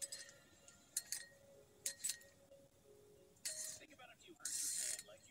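Winged corkscrew being worked into and drawing the cork of a wine bottle: a few sharp metallic clicks in the first two seconds, then two short rasping bursts near the end as the cork is pulled.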